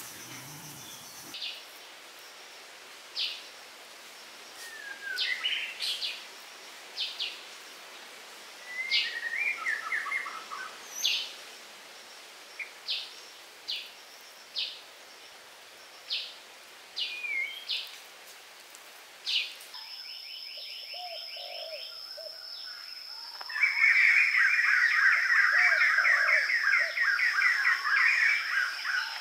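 Birds calling in short, separate chirps with a few falling notes. About twenty seconds in a steady high whine joins, and near the end a loud, rapid trill sets in.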